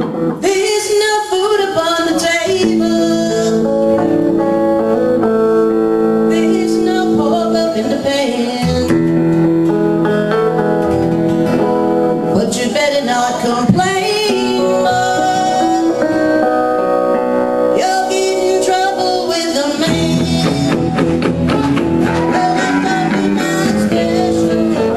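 Live band playing a blues-style song, with electric guitar and a singer.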